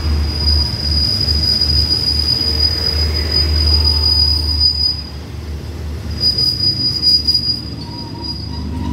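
Passenger coaches of a diesel-hauled express train rolling slowly past as the train pulls away, wheels squealing against the rails in one steady high-pitched whine over a low rumble. The squeal breaks off about five seconds in and comes back for a couple of seconds near the end.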